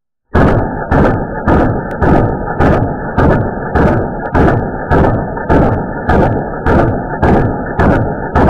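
Full-auto fire from a CZ 858 rifle in 7.62×39, slowed down so the shots come as deep, drawn-out thuds at an even pace of about two a second, beginning abruptly just after the start.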